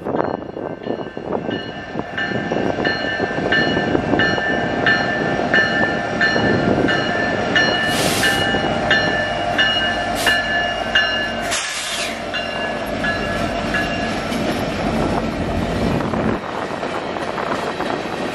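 Freight train rolling past with a steady rumble of wheels on rails. A high ringing tone repeats about one and a half times a second and stops about 14 seconds in, with a few short hisses near the middle.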